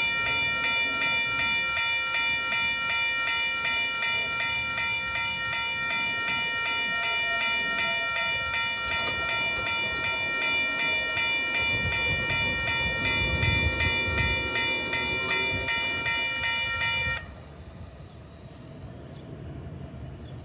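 Railroad grade-crossing warning bells ringing in a fast, even series of dings, cutting off suddenly about 17 seconds in. Under them a train rumbles past, loudest about two-thirds of the way through.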